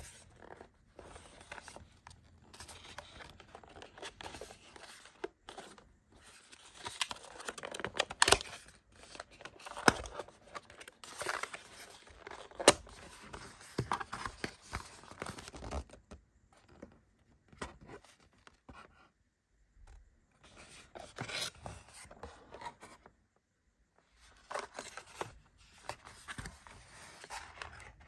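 Cardboard knife box being handled and opened: the paper sleeve and tray slide and rub against each other in irregular scraping, rustling bursts, with a few sharp taps and clicks and short pauses between.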